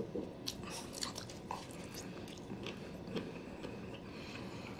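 A person chewing a mouthful of California roll sushi close to the microphone: soft, irregular wet mouth clicks.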